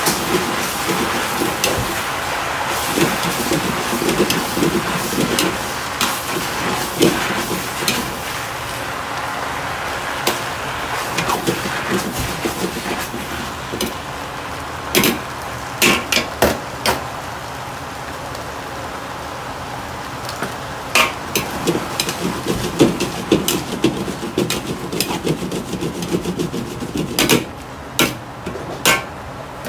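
Greens and pork sizzling in a 50 cm wok over a gas burner while a metal ladle stirs and scrapes them, with sharp clanks of the ladle striking the wok, coming in clusters through the second half.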